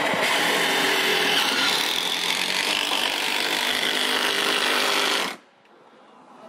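A power drill running steadily, then stopping abruptly about five seconds in.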